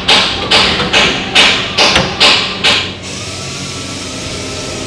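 A run of sharp, evenly spaced knocks, about two a second, that stops about three seconds in. After it comes a steady high tone over a low hum.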